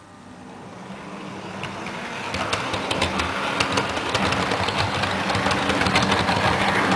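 Model train running up close: its small electric motor whirring with a steady hum and its wheels clicking over the track, growing louder as it approaches and passes.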